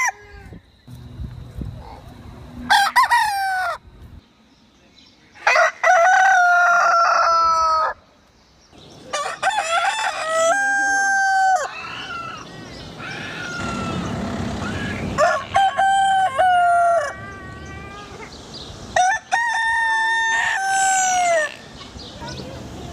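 Rooster crowing repeatedly: about five long cock-a-doodle-doo crows, each held and then falling in pitch at the end, with quieter gaps between.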